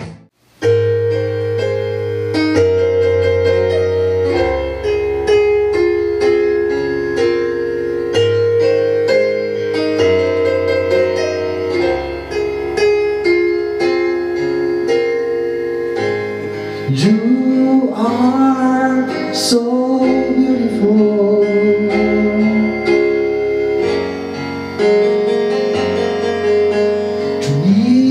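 Live band music: after a brief dropout, keyboards play sustained chords, and a voice starts singing about halfway through.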